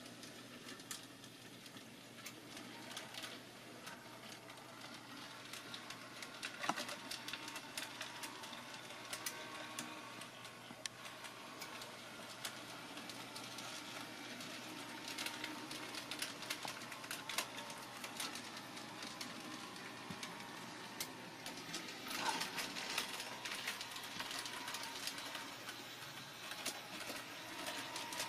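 HO-scale model trams running on the layout: small electric motors whirring, with many small clicks and ticks from wheels on the track, and two louder clicks about a quarter and three quarters of the way through.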